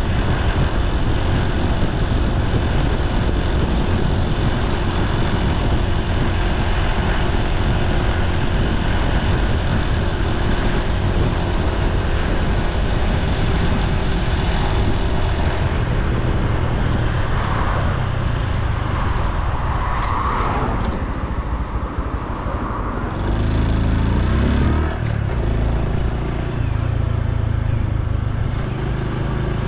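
Honda Super Cub C125's single-cylinder four-stroke engine and exhaust running while riding, with road noise. The sound eases about halfway through, and there is a brief louder stretch with a deeper rumble near the end.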